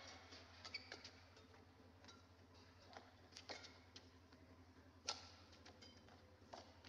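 Badminton rally: faint, sharp racket strikes on a shuttlecock at uneven intervals of about a second or two, the loudest about five seconds in, over a low steady hum.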